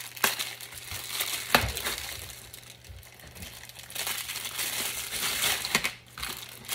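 Clear plastic packaging crinkling as a leather bag strap with metal clips is pulled out of it by hand. There are two sharp clicks, one just after the start and a louder one about a second and a half in, and a denser run of crinkling near the end.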